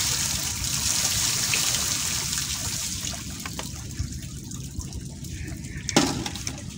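Sea water sloshing and trickling, loudest in the first few seconds and then easing off, with scattered small clicks. A single sharp knock comes about six seconds in.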